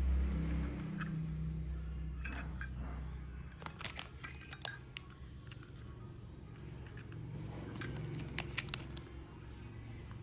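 Small metal clicks and clinks from a brass Zippo lighter case being handled, in two scattered clusters, over a low rumble that fades a few seconds in.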